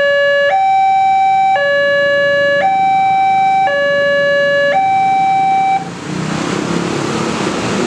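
Railway level-crossing warning siren, an electronic two-tone hi-lo signal switching between a lower and a higher tone about once a second, warning that a train is approaching or passing. It stops about six seconds in, and a steady rushing noise follows.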